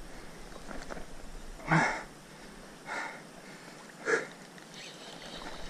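A man breathing hard, with three sharp exhalations about a second apart, winded from straining against a big fish on the rod. A low steady hiss of wind and river runs underneath.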